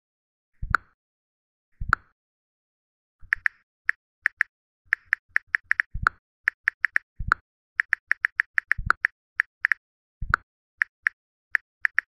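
iPhone on-screen keyboard clicks as a sentence is typed, about three to four short, sharp clicks a second, with a few louder, deeper clicks among them. The clicks are sparse in the first few seconds, then come quickly.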